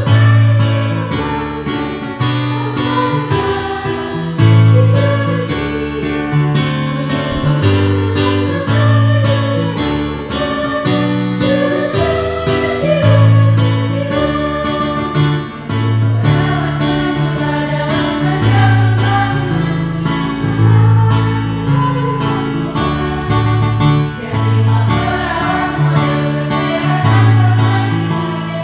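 Choir singing with a keyboard accompaniment that holds low bass notes under the voices.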